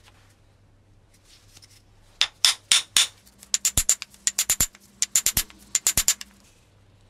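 Hand hammer striking steel in quick groups of light, ringing blows, about twenty in all, beginning about two seconds in and stopping about a second before the end.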